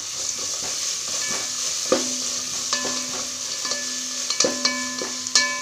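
Onions and ginger-garlic paste sizzling in hot oil and ghee in a large aluminium pot while a spatula stirs and scrapes through them. The spatula knocks against the pot several times, and some knocks leave brief ringing tones.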